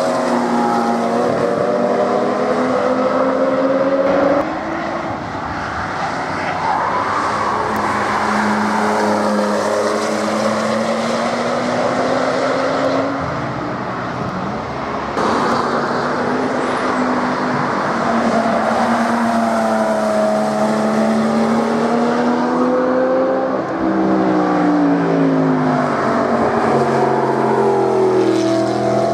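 High-performance sports cars, among them a Porsche 911 and an Audi R8, driving past one after another at speed. Their engine notes repeatedly climb and drop in pitch under acceleration and lifting off, over tyre noise.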